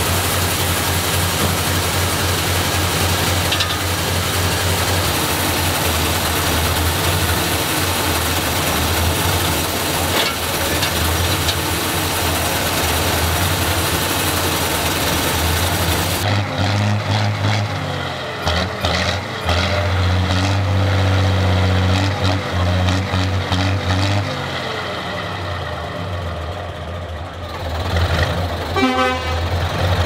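Mack NR logging truck's diesel engine running, driving its PTO winches. For the first half it runs with a dense hiss over it. About halfway through this cuts off abruptly, leaving a steadier, cleaner engine note.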